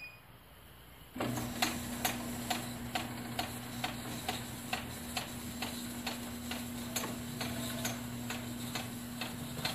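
A chain-drive garage door opener, mounted sideways to drive two sliding barn doors shut, starts about a second in and runs with a steady hum and a regular click about twice a second. The owner does not know what causes the click and thinks it may be inherent in the design.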